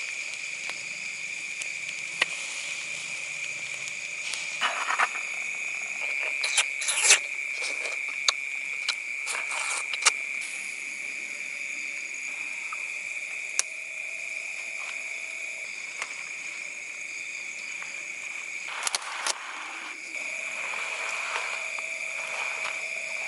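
Steady, high-pitched night chorus of calling insects and frogs, with scattered sharp clicks and a few brief rustles over it.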